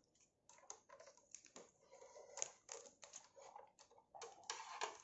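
Faint, irregular small clicks and taps of hard plastic lamp parts being handled and fitted together, with the cord and a metal tool knocking against the plastic base; the clicks come thicker in the second half.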